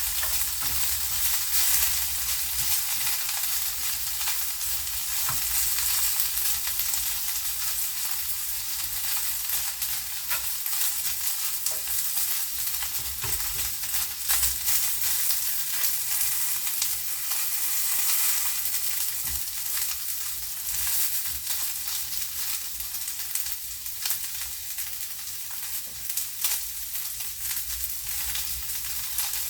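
Pieces of chicken breast sizzling and crackling in hot oil in a pan as they brown, with occasional clicks of the pieces being stirred.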